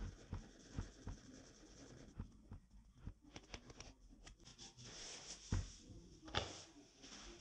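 Faint scratching and rustling with scattered light taps: a hand and a kitten's paws moving against a rolled foam yoga mat, with two sharper knocks in the second half.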